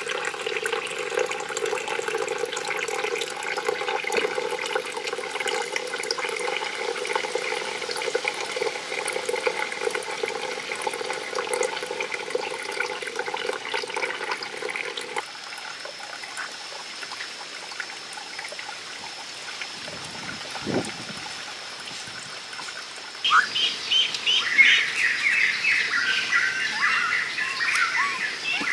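Outdoor ambience of water trickling from a bamboo spout into a small stone pond, with birds chirping. A steady drone runs through roughly the first half, a thin high steady whine through the middle, and busier bird chirping fills the last few seconds.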